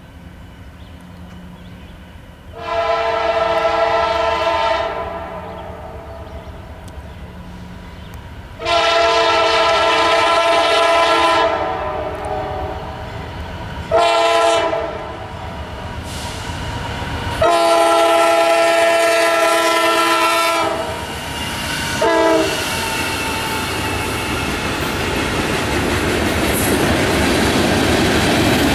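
Freight locomotive's multi-chime air horn sounding the grade-crossing signal: long, long, short, long, then a brief extra toot. It is followed by the rising rumble and wheel clatter of the locomotive and freight cars passing close by.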